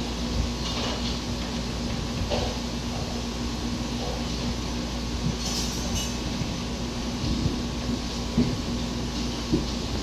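Quaker parrot (monk parakeet) making a few short chirps and mutters to itself, spaced a second or more apart, with a longer one around the middle, over a steady low hum.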